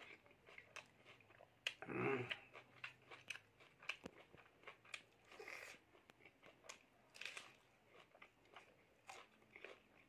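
Close-up chewing and lip-smacking with crunchy bites of a raw lettuce leaf wrapped around rice, eaten by hand, in many short wet clicks. A brief, louder voiced mouth sound comes about two seconds in.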